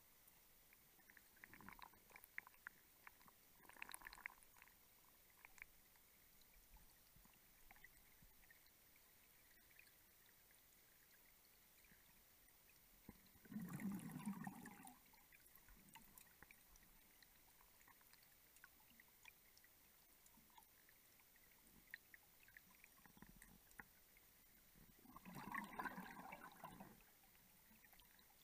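Underwater near silence, broken by a few short gurgles of gas bubbles escaping from a closed-circuit rebreather diver's gear. The loudest gurgle comes about halfway through and another comes near the end.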